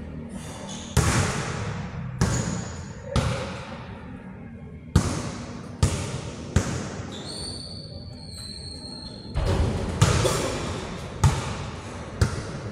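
Basketballs bouncing on an indoor court floor: about ten irregularly spaced thuds, each with a long hall echo, the last one close by. A thin high squeal lasts about two seconds around the middle.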